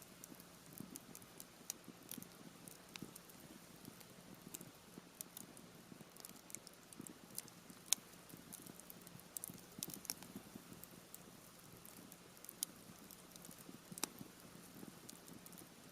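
Campfire of half-dried Japanese cedar (sugi) wood crackling, with irregular sharp pops as the damp wood bursts. Two louder pops come about 8 and 14 seconds in.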